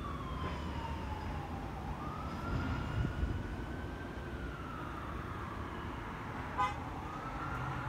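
Emergency vehicle siren wailing, its pitch sliding slowly down, back up and down again, over a low road rumble.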